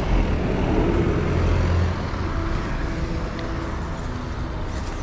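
Road traffic: a vehicle passing, a low rumble that is loudest for about the first two seconds and then eases off.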